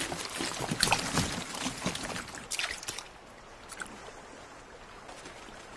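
Water splashing in a run of short splashes and drips over the first three seconds, then settling to a faint steady water hiss.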